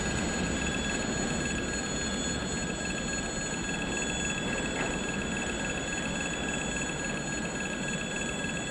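Railway level crossing's electric warning bell ringing steadily while the signals flash, over the low rumble of a departing freight train.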